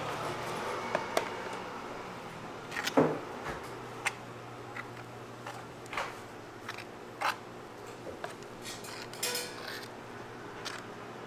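Scattered light clicks and knocks of utensils and packaging being handled at a food counter, with one louder knock about three seconds in and a short rustle near the end, over a steady low hum.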